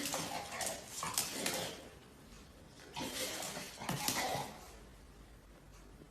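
A dog making excited noises in two bursts, with sharp clicks mixed in, as it dances over a treat.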